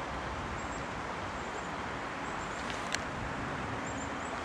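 Steady rush of flowing creek water, with a single sharp click about three seconds in.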